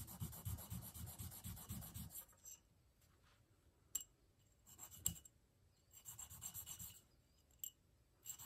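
A small steel shotgun extractor rubbed back and forth on a dry India sharpening stone: a quick run of short strokes for about two seconds, then pauses broken by a few light clicks and more brief rubbing. The extractor is being stoned down on its sides because it is still a little snug in the bolt.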